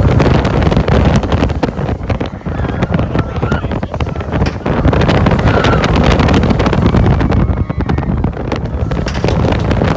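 Wind buffeting the microphone and rushing air as a steel roller coaster train runs at speed along its track, a dense, unbroken noise with brief dips about two and four and a half seconds in.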